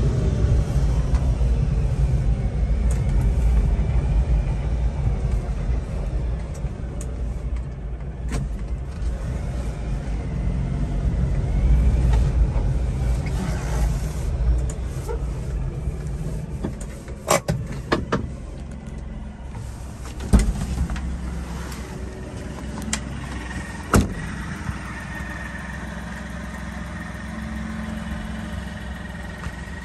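Supercharged Mitsubishi Minicab kei truck engine running while the truck is driven slowly, heard from inside the cab along with road noise, easing off over the first half. A few sharp clicks and knocks follow in the second half, then the engine idles steadily.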